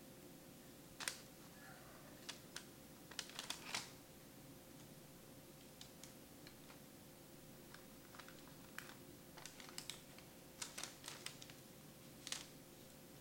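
Faint, irregular clicks and light taps in small clusters as red sugar crystals are shaken from a small bottle onto cookie dough on a parchment-lined baking sheet.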